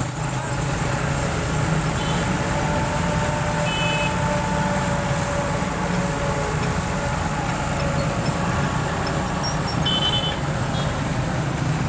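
Heavy vehicle engines running steadily, with a few short high beeps about 2, 4 and 10 seconds in.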